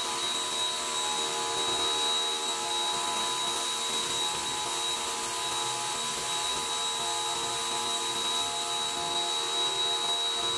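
Pressure washer spraying water onto a pickup truck's body panels and wheel: a steady hiss of spray over the machine's continuous whine.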